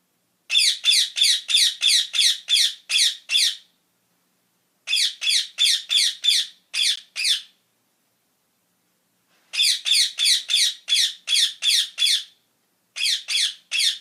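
Rose-ringed parakeet screeching: shrill, harsh calls repeated about three a second in four bouts, with silence between the bouts.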